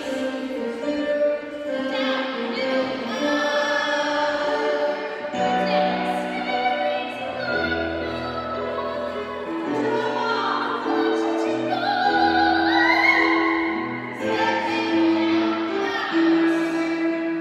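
A song plays: a singer's voice holding notes with vibrato over an instrumental accompaniment with sustained bass notes.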